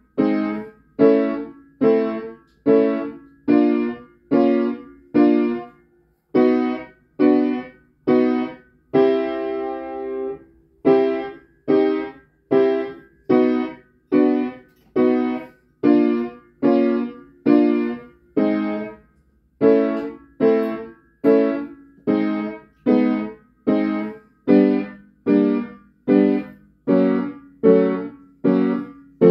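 Cable-Nelson upright piano playing block chords struck one after another about twice a second in an even rhythm, each dying away before the next. One chord is held longer about ten seconds in, and there is a brief break a little before twenty seconds.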